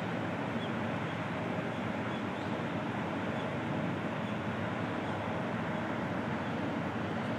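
Steady outdoor background noise, an even hiss and rumble with no distinct events.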